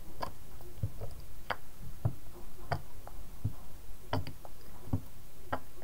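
About a dozen sharp, irregular clicks and taps, roughly two a second, as a plastic squeeze bottle of acrylic paint is squeezed and its nozzle dabbed onto gesso-coated paper, over a low rumble.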